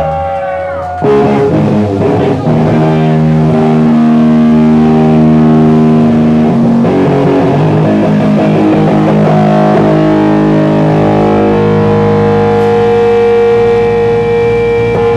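Heavily distorted electric guitar and bass guitar playing slow, loud doom-metal chords. Each chord is held and left ringing for several seconds before it changes, with no drums yet.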